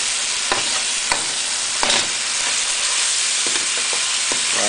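Deboned duck feet sizzling in sauce in a hot wok as they are stir-fried. A metal wok spatula scrapes and knocks against the wok a few times.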